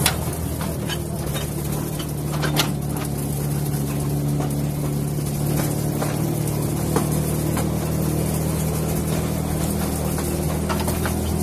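Narrow-gauge passenger train on the move, its locomotive's engine running at a steady drone, heard from an open carriage, with scattered short clicks and knocks.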